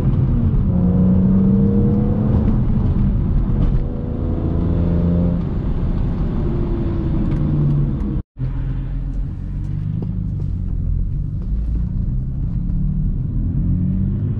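BMW E46 M3's S54 straight-six, fitted with an Eventuri intake and a Status Gruppe muffler, heard from inside the cabin while driving, its note rising and falling with the revs. The sound cuts out for a split second a little after eight seconds in, then comes back as a steadier, lower cruising note.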